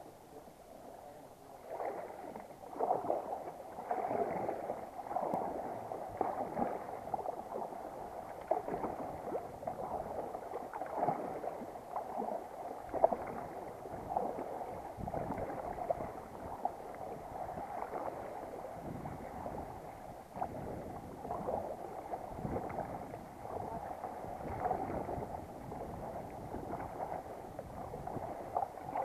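Kayak paddling on the sea: the paddle blade dips and splashes about once a second, with water gurgling along the sit-on-top kayak's hull. The strokes start about a second and a half in.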